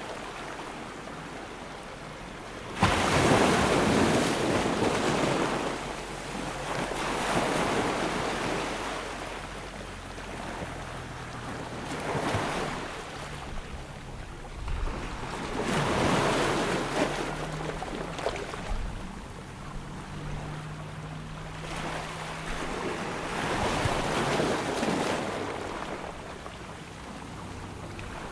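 Small waves washing onto the shore, surging and falling back about every four seconds.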